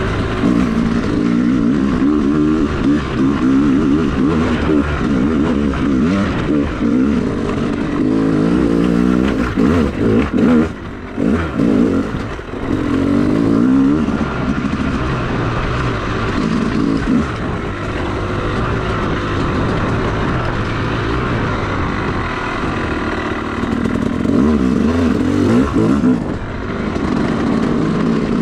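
Yamaha YZ250 two-stroke dirt bike engine revving up and down while being ridden on a trail, with the throttle easing off briefly about eleven and twelve seconds in.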